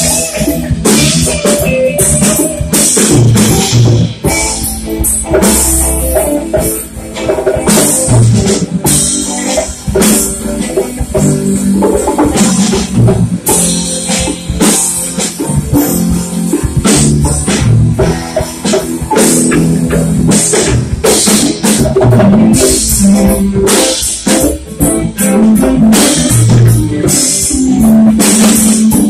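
Live rock band playing a loud instrumental passage: two electric guitars, a bass guitar and a drum kit.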